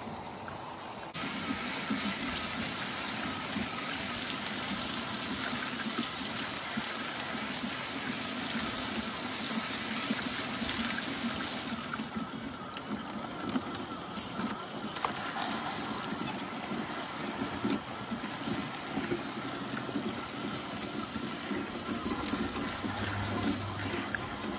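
Water running from a hose into the plastic funnel and screen of a gold-separating machine, a steady rushing splash that gets louder about a second in.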